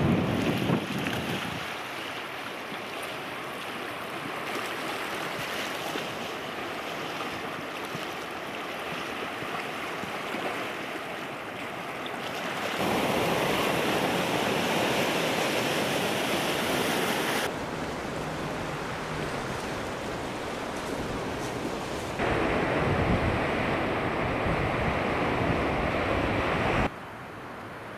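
Small waves washing against a rocky, pebbly sea shore, with wind buffeting the microphone. It gets louder and rougher for two stretches that begin and end abruptly.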